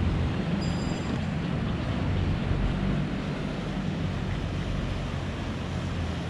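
Low, steady drone of a passing canal boat's engine, heard under wind rumbling on the microphone.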